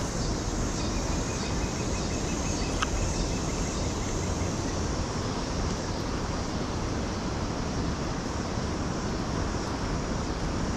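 Swollen, muddy river rushing steadily past the bank, with wind buffeting the microphone.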